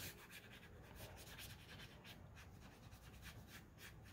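Faint, repeated strokes of a Pentel Aquash water brush's bristles rubbing over damp watercolor paper, a soft scratchy brushing several times a second.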